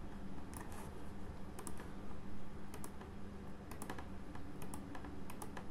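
Computer mouse clicking irregularly, about one or two clicks a second, each click placing a track point on a map, over a low steady hum.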